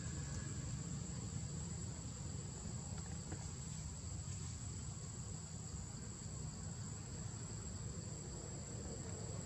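Insects chirring steadily on one high pitch, over a constant low rumble.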